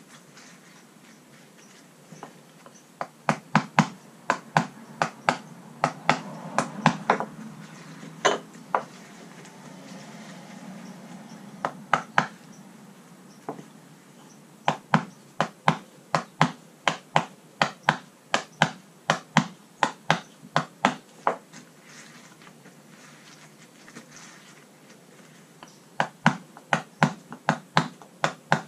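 Runs of sharp, regular clicks, about two a second, with some softer rubbing between them, from hand work on a jet ski's gel-coated deck as the last of the old traction mat foam and glue is worked off.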